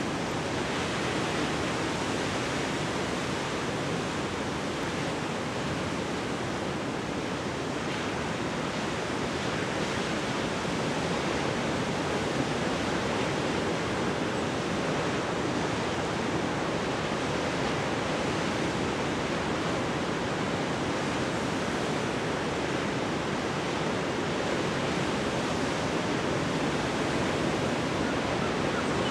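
Rough Pacific surf breaking over a rocky shore: a steady, unbroken rush with no single wave crash standing out.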